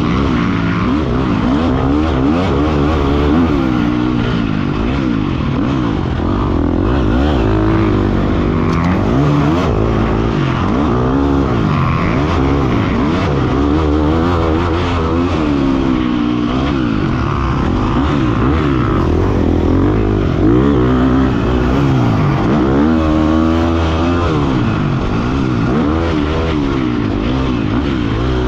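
Husqvarna FC 350 four-stroke single-cylinder dirt bike engine, heard on board, revving up and down over and over as the rider accelerates, shifts and backs off around a motocross track.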